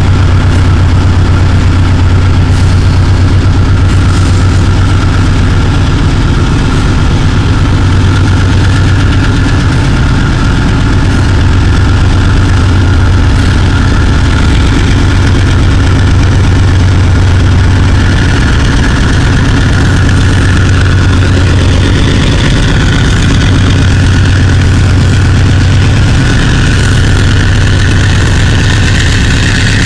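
CSX diesel-electric locomotive's diesel engine running steadily as the train moves slowly past, a deep steady drone with a fainter higher whine that rises slightly near the end.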